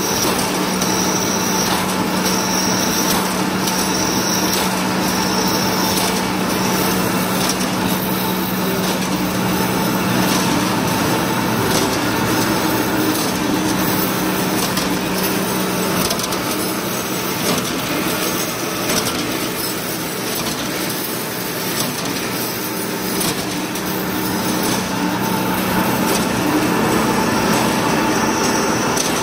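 Cold-rolling ribbed wire drawing machine running, rolling 6.5 mm round steel wire down to 4.8 mm ribbed wire. It makes a steady mechanical noise with a constant hum and an irregular rattle of clicks.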